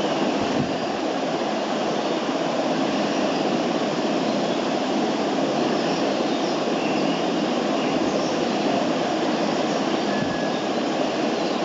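Steady, even rushing noise with no change in level.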